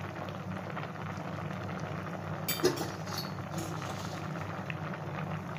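Water at a rolling boil in a clay pot full of taro chunks, bubbling steadily. A brief clink about two and a half seconds in.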